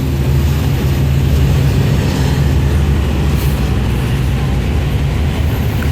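City transit bus engine running steadily with a low, even drone, which the uploader hears as an engine in need of an overhaul.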